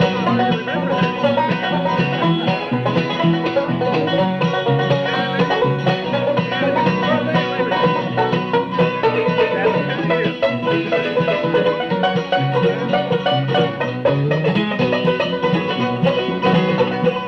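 Bluegrass band playing an instrumental break between verses, with banjo, guitar and upright bass.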